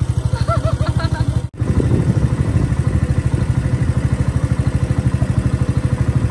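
A boat's engine running steadily with a fast, even throb as the wooden boat moves along the channel, briefly cutting out about a second and a half in.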